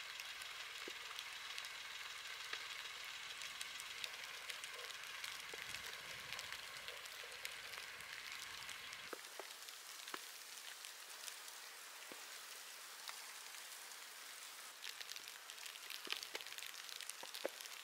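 Faint patter of heavily falling snow: a fine, steady hiss with scattered light ticks, a little busier near the end.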